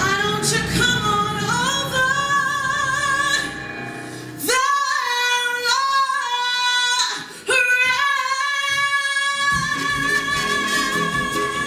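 Music: a woman singing long held notes with band accompaniment. For about five seconds in the middle the low accompaniment drops away, leaving the voice nearly alone, and the full backing comes back about two-thirds of the way through.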